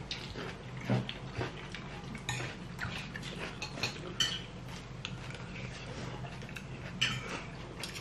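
Knives and forks clinking and scraping against dinner plates as food is cut and picked up, in scattered irregular clicks, the sharpest about a second in, around four seconds in and about seven seconds in. A low steady hum runs underneath.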